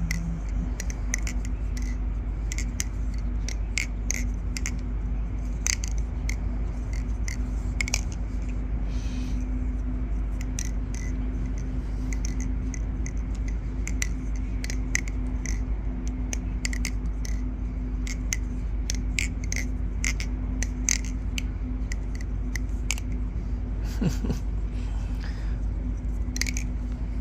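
Balisong (butterfly knife) being flipped: irregular sharp clicks and clacks as the handles swing and knock together, over a steady low hum.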